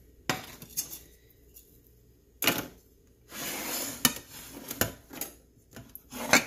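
Ceramic plates knocking and clinking on a countertop, several sharp clinks spread out, with a scrape lasting just under a second midway as a plate slides across the counter.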